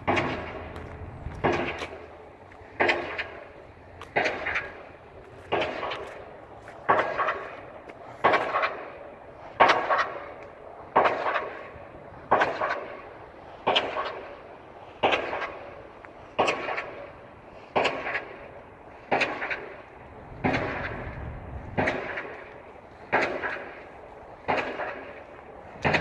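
Pile driver hammer pounding a pile in a steady rhythm, one heavy blow about every second and a half, each ringing out briefly.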